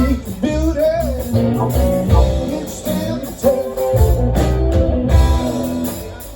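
Live band playing a rock-blues tune: guitar over bass and drums, with some singing or bending guitar lines. The playing dies down near the end.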